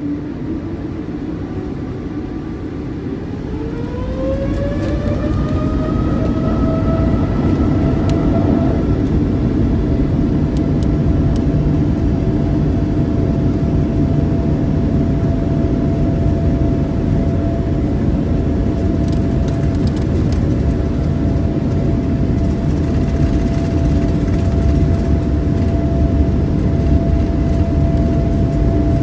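Boeing 787-8 jet engines spooling up to takeoff thrust, heard from inside the cabin. A whine rises in pitch over a few seconds and levels off, then a steady, loud rumble and whine carries on through the takeoff roll.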